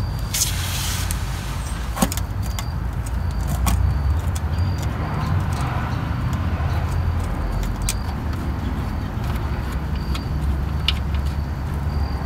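Scattered light metallic clicks and taps over a steady low rumble, as the starter motor's upper mounting bolt is turned out by hand.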